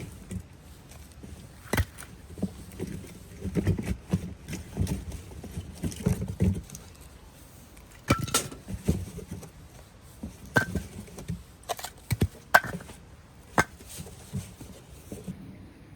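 Camping gear being handled and set down: a series of sharp knocks and clicks, a few with a brief metallic ring, with rustling between them.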